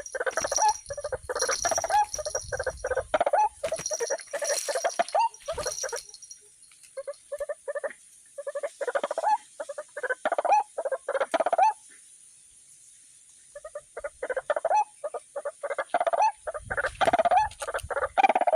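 White-breasted waterhen calling: bouts of rapid, repeated croaking notes, with a short pause past the middle before the calling resumes. A steady high insect trill sits behind.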